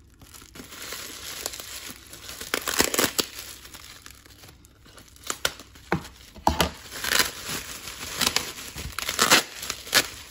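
Plastic bubble wrap crinkling and rustling in irregular bursts as hands unwrap a bundled package.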